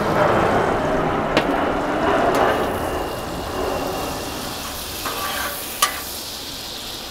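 Butter and olive oil sizzling in a pool on a hot Blackstone flat-top griddle while a metal spatula pushes the melting stick of butter around. There are a few sharp clicks, and the sizzle slowly grows quieter.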